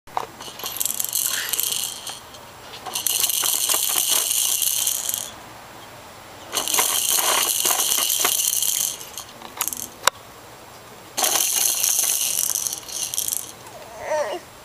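A rattle shaken hard in four bursts of about two seconds each, with short pauses between, and a single sharp click in one of the pauses.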